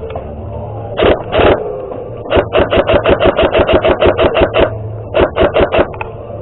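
Airsoft gun firing: two quick shots, then a rapid string of about sixteen shots at some six or seven a second, then a short burst of four.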